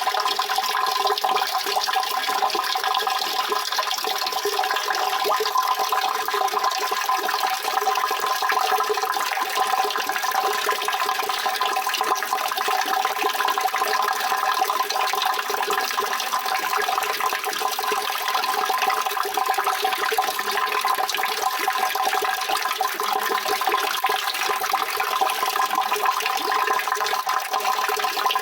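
Water running steadily and continuously, an even rushing flow with no pauses or changes.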